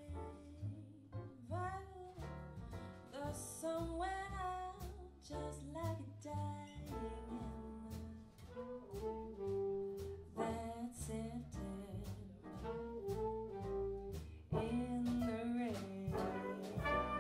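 Big band playing swing jazz with no vocal: saxophone section lines over walking double bass and a steady drum beat. The trumpets and trombones come in louder about fourteen seconds in.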